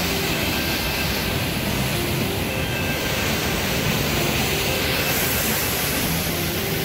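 Steady rushing roar of a rain-swollen waterfall, water pouring over rocks into a churning pool.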